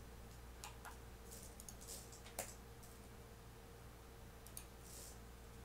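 Faint, scattered clicks of a computer keyboard and mouse, a few seconds apart, with one sharper click about two and a half seconds in, over a steady low hum.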